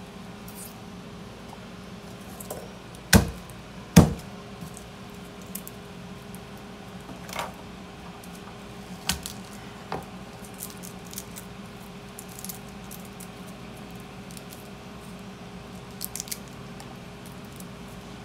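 Garlic cloves being peeled and cut with a kitchen knife on a wooden cutting board: two sharp knocks about three and four seconds in, then scattered lighter taps and clicks, over a steady low hum.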